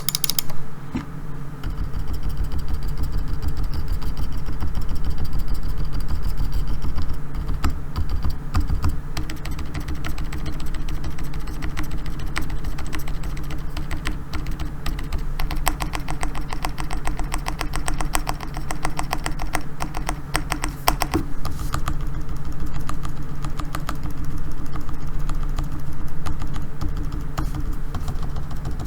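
Keychron K4 keyboard with hand-lubed Gazzew Bobagum silent linear switches being pressed key by key, a quick irregular run of soft, damped clicks, over a steady low hum.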